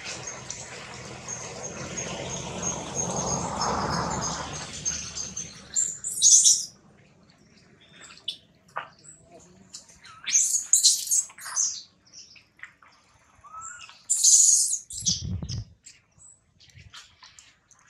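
Short high-pitched chirping calls in quick bunches, about six, ten and fourteen seconds in, after a stretch of rustling hiss; one low thump comes near the end.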